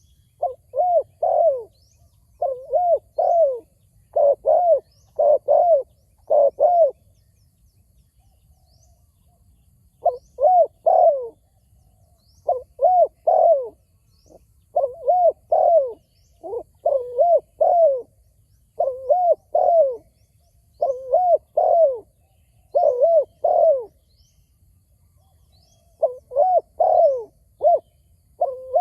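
Spotted doves cooing: repeated phrases of two to four low, arching coos with short pauses between phrases.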